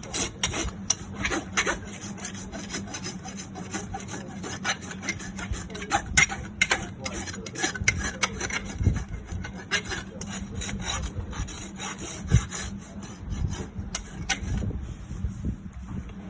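Farrier's rasp scraping over a horse's hoof wall in a run of irregular strokes, smoothing off the clenched nail ends of a freshly nailed shoe.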